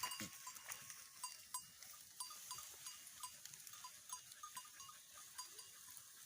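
Small bells on grazing goats clinking faintly and irregularly, a few strikes a second, each ringing briefly.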